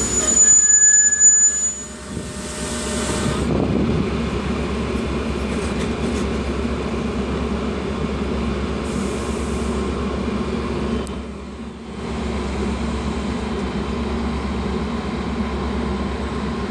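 Metra commuter train hauled by two diesel locomotives running through the station, a steady drone of engines and rail noise. It is loudest in the first two seconds, where a few thin high tones ring out.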